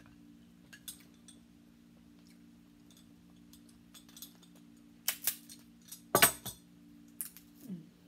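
Cooked crab shells being cracked and pulled apart by hand: scattered small clicks, then a run of sharp, loud cracks and snaps about five to six and a half seconds in, with a few more near the end. A low steady hum runs underneath.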